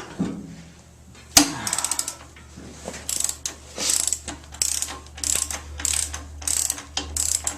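Ratchet wrench clicking in a run of short back-and-forth strokes as it turns a 27 mm motorcycle rear axle nut off. A single sharp metallic clack comes about a second and a half in, before the steady ratcheting starts.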